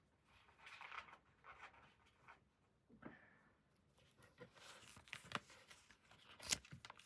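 Faint rustling and handling of paper booklets and packaging card, with a few small clicks; a sharper tick comes about six and a half seconds in.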